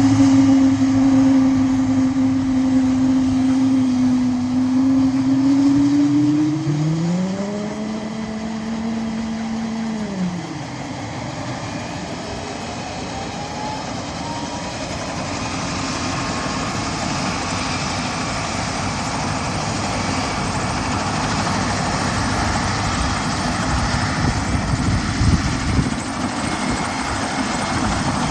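Coastguard search-and-rescue helicopter (AgustaWestland AW189) starting up: steady turbine whine, with a second whine that rises, holds for a few seconds and drops away about ten seconds in. A fainter whine then climbs as the engines spool up, and the rushing noise of the turning rotors builds toward the end.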